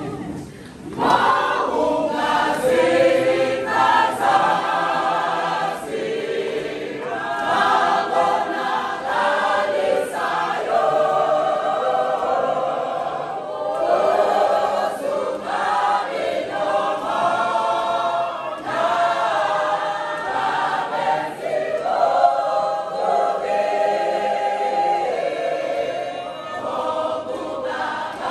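Large church choir singing a gospel hymn, many voices together and unaccompanied. The singing comes in about a second in after a short pause, then continues in long sustained phrases.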